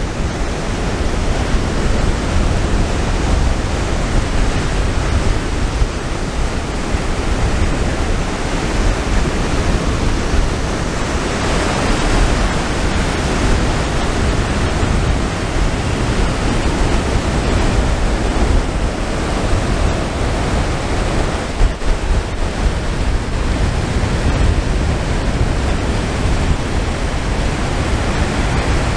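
Ocean surf washing in, with wind buffeting the microphone: a steady rushing noise with a heavy low rumble.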